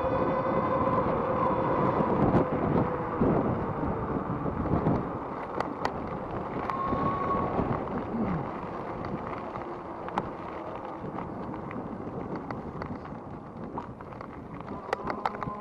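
Wind buffeting the microphone while riding a Rize Blade 2 electric bike, with the electric motor's steady whine over the first few seconds, then fading as the sound eases off. A few light clicks and rattles from the bike.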